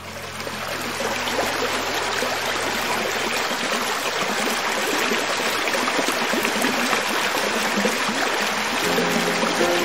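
Hill creek water flowing steadily over rocks, a rushing hiss that swells in over the first second. Soft background music with held low notes fades out in the first few seconds, and new notes come in near the end.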